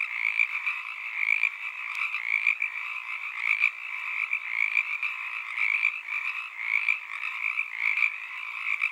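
A dense chorus of frogs calling over one another without a pause.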